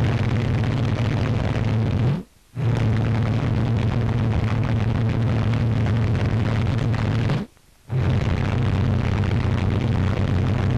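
Steady low engine drone under a broad hiss. It cuts out briefly about two seconds in and again just before eight seconds.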